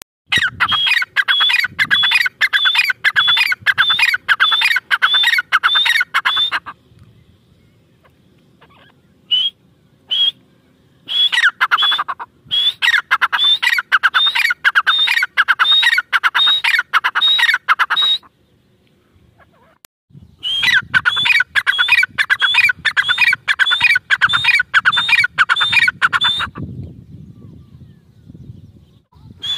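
Grey francolin calling loudly: quick, ringing repeated notes, about two a second, in three long bouts with short pauses between, and two single notes in the first pause.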